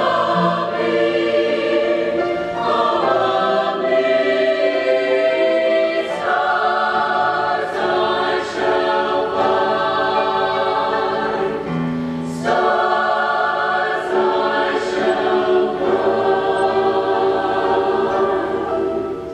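A mixed-voice high school choir singing held chords in phrases, with short breaks between phrases about six and twelve seconds in; the singing falls away at the very end.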